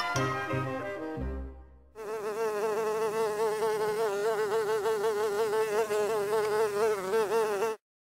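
Music notes fading out, then a steady insect buzz with a slight waver in pitch, starting about two seconds in and cutting off sharply near the end.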